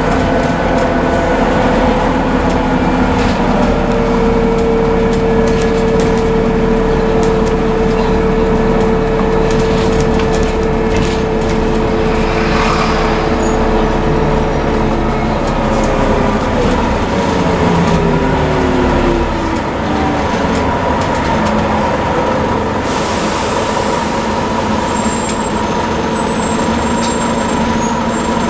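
Scania N230UD double-decker bus heard from inside on the move: its engine and driveline run with a steady whine that slides down in pitch about halfway through as the bus slows, then carries on a little quieter.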